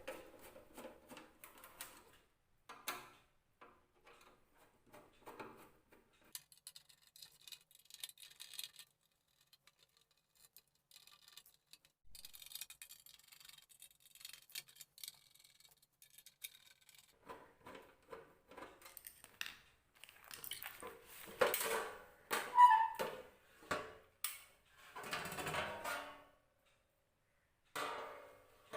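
Small clicks and scrapes of an inverter welding machine's metal casing being unscrewed and opened, with louder rattling and scraping of the cover being handled a little past the middle.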